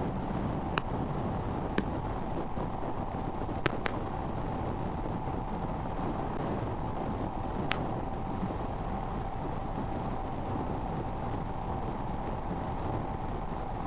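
Royal Enfield Himalayan at highway speed: steady engine and wind rush on the microphone, broken by a few sharp clicks in the first eight seconds.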